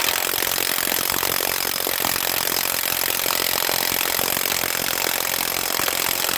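HANS 1/2-inch cordless impact wrench hammering steadily on a wheel lug nut, then stopping suddenly near the end. The nut does not come loose: the wrench fails to break it free.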